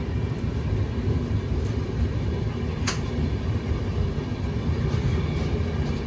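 Passenger express train running on its rails, heard from on board: a steady low rumble, with one sharp click about three seconds in.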